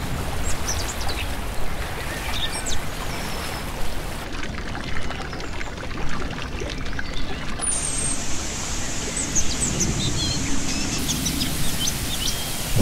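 Steady running and splashing water, with small birds chirping and tweeting over it throughout.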